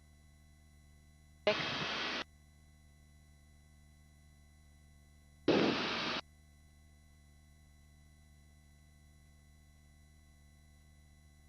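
Helicopter headset intercom feed with a faint steady electronic hum. Twice, about four seconds apart, a short burst of rushing noise under a second long comes through and cuts off abruptly, as the intercom mic opens and closes.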